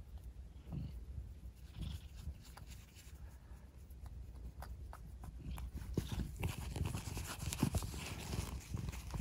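A tabby kitten making a few soft, short murmuring sounds close to the microphone. Rustling and small clicks of fur and bedding being handled grow busier in the second half.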